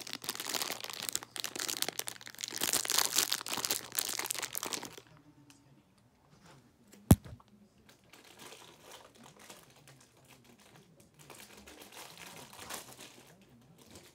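Mystery-box packaging crinkling as it is opened by hand, loudly for about five seconds and then more faintly, with a single sharp snap about seven seconds in.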